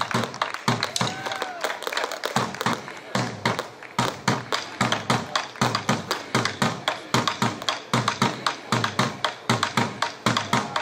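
Large rope-tensioned wooden drum beaten with sticks in a fast, steady rhythm of low thumps, about three to four beats a second, mixed with sharp taps, likely including the swung rope slapping the floor.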